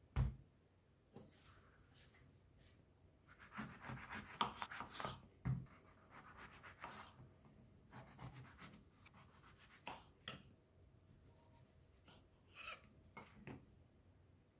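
Chef's knife slicing through grapefruit peel and knocking on a bamboo cutting board. There is a thud right at the start as the grapefruit is set down, then a quick run of cutting strokes a few seconds in, then single cuts and knocks spaced by quiet gaps.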